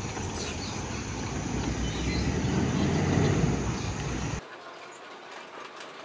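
A road vehicle passing on the highway, a low rumble that swells about three seconds in and cuts off abruptly about four seconds in, over a steady high whine.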